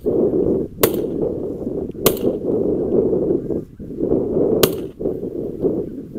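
Wind buffeting the microphone in a steady low rumble, broken by three sharp cracks about a second, two seconds and four and a half seconds in.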